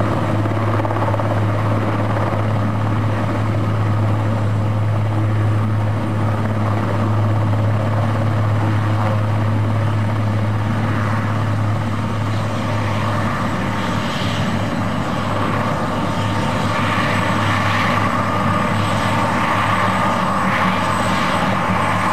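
Aérospatiale AS332 Super Puma twin-turbine helicopter hovering low and settling onto its wheels, main rotor and turbines running steadily, with a strong low hum under the roar. A higher turbine whine grows stronger in the second half.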